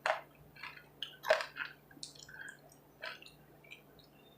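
Close-miked chewing and wet mouth smacks of someone eating buffalo chicken wings, with a few sharp clicks and smacks: one at the start, a louder one about a second and a half in, and another near three seconds.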